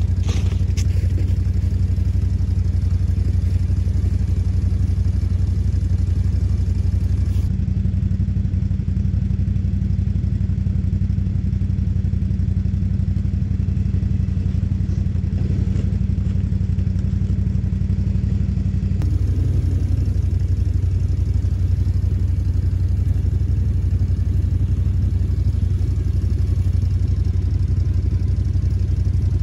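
ATV engine running steadily at constant low revs, an even deep hum. The sound shifts abruptly about seven seconds in and again about nineteen seconds in.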